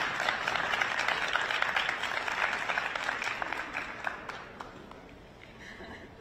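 Audience applause, individual claps standing out, fading away over about five seconds.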